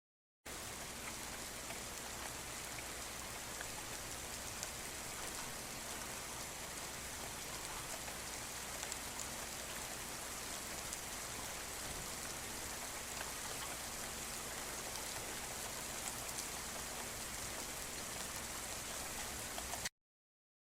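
Steady rain falling: an even hiss with many scattered drop ticks. It starts abruptly about half a second in and cuts off suddenly near the end.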